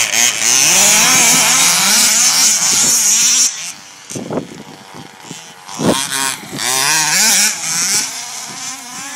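Two-stroke petrol engines of 1/5-scale HPI Baja RC buggies revving up and down as they are driven. Loud for the first few seconds, then fainter as the cars move off, with short sharp blips of throttle about four and a half and six seconds in.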